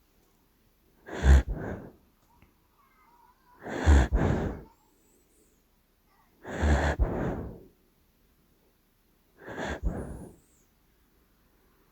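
Sleeping dachshund puppy snoring: four loud snoring breaths about three seconds apart, each split into two parts by a brief break.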